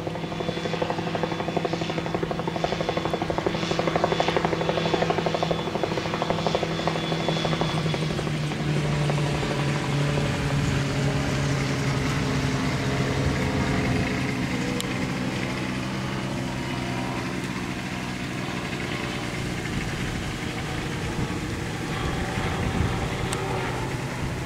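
Rotorsport MT-03 autogyro flying past: a steady engine and propeller drone with a fast chop, loudest in the first eight seconds or so, then easing to a softer, steadier drone as it moves away.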